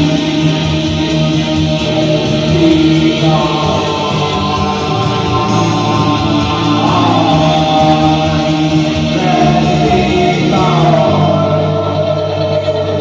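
A band playing live with singing and guitar, ending on held notes in the last seconds.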